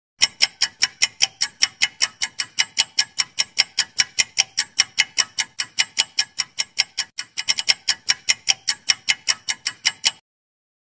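Clock-ticking countdown sound effect, sharp even ticks at about four a second, marking the time allowed to answer. It stumbles briefly a little after seven seconds and cuts off suddenly about ten seconds in.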